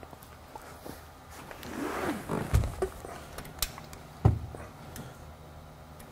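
Someone climbing into a classic Mustang: a creak from the car body or seat about two seconds in, followed by a few heavy thumps, the loudest a little past four seconds, and some light clicks.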